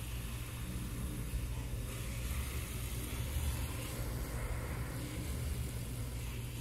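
Pressure washer running steadily, its motor and pump giving a low hum, while the water jet hisses against the fins of an air-conditioner evaporator coil.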